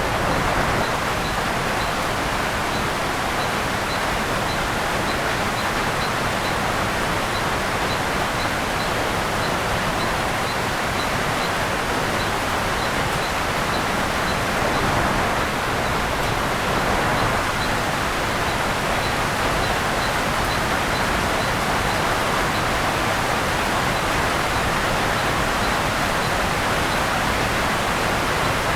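Steady rainfall on the rainforest canopy, an even hiss without breaks. A faint high chirp repeats two or three times a second throughout.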